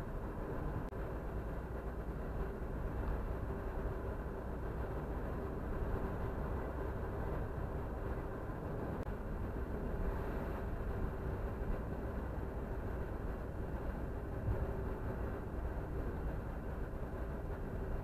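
Steady road noise of a car driving at highway speed: tyre rumble and engine hum heard from inside the cabin.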